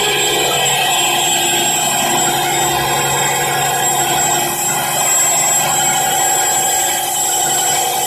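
Six-cylinder Volvo four-stroke marine engine running steadily at constant speed, with an even hum and no changes in pitch.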